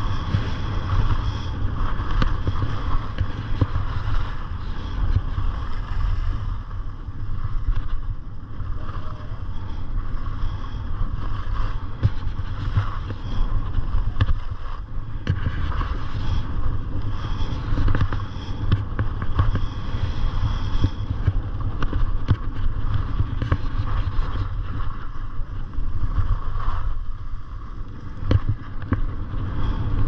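Wind buffeting the microphone of a skier's camera during a downhill run, a steady low rumble, with skis scraping and chattering over packed snow.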